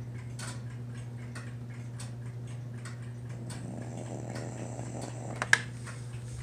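A sleeping pet snoring softly, one slow breath swelling up about four seconds in, over a clock ticking about twice a second and a steady low hum. A couple of sharp clicks near the end are the loudest sound.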